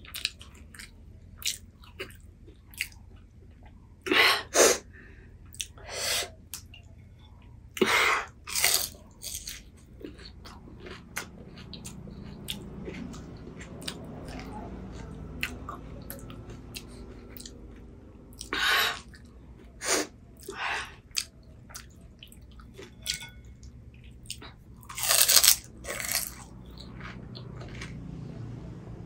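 Someone eating pani puri: crisp hollow puri shells bitten and chewed, with many small crunching clicks and a handful of louder bites spread through.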